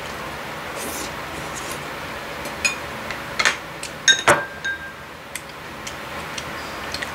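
Spoon and chopsticks clinking against ceramic bowls and the serving pan during a meal: a handful of sharp clinks in the middle, the loudest about four seconds in, with a short ringing after it.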